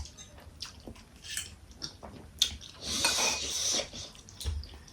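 Light clinks and knocks of dishes while momos are eaten, with a longer noisy scraping sound about three seconds in.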